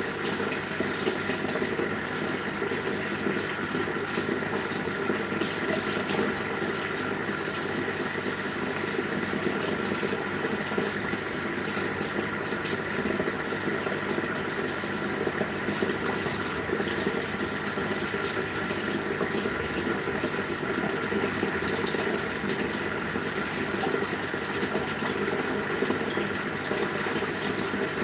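Aquarium air stones bubbling steadily: a continuous rush of air bubbles rising through the water and breaking at the surface.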